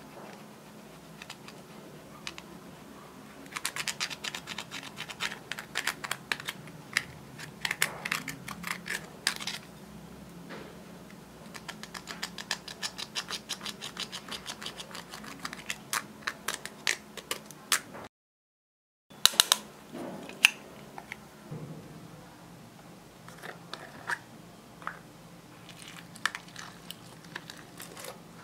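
A small tool scraping and chipping pressed blush and eyeshadow out of plastic compacts: fast runs of sharp clicks and scratches, with a break of about a second of dead silence past the middle.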